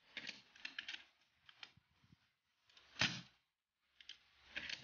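Handling noise from a home-built bullpup PCP air rifle: quick light clicks and rattles of its metal parts, with one louder knock about three seconds in.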